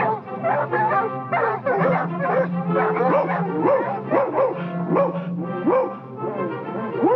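A pack of cartoon hounds barking and yelping in short rising-and-falling yips, over an orchestral score with held notes.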